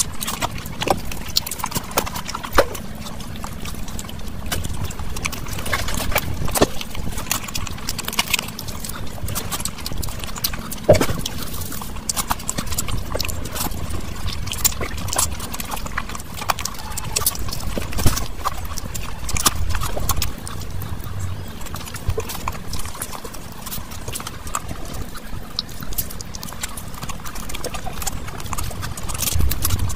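Close-miked chewing and eating: many irregular wet mouth clicks and smacks as meat curry and rice are bitten and chewed.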